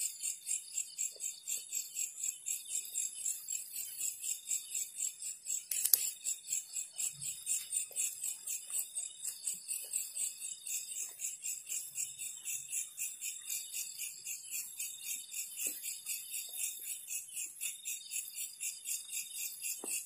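Night insects chirping in a continuous high-pitched pulsing trill, about four pulses a second, with a single sharp click about six seconds in.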